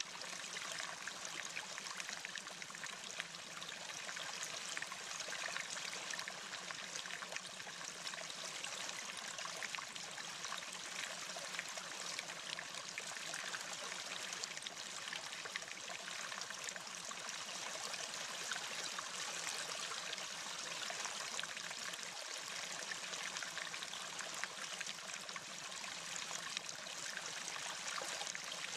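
Steady sound of running water like a flowing stream: an even, unbroken rush with no pauses or rhythm.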